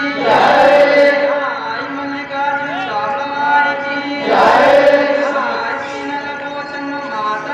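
A group of men chanting a devotional opening prayer together in a slow, sustained melody. A new loud phrase begins about half a second in and again about four seconds in.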